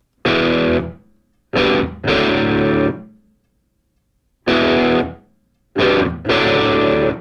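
Distorted electric guitar playing chords in short stabs, about six of them, each struck sharply and let ring for under a second, with gaps of silence between.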